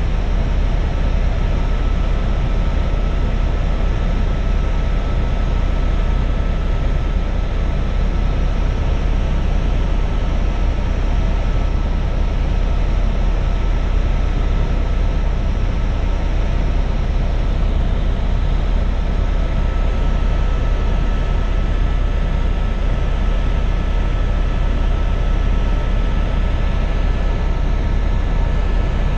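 Helicopter cabin noise in flight: the engine and rotor give a loud, steady drone with a faint steady whine over it.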